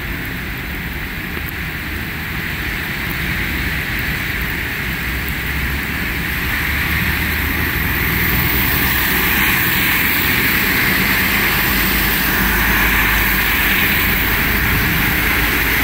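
Road traffic on rain-wet streets: a steady hiss of tyres over a low engine rumble, swelling louder about halfway through.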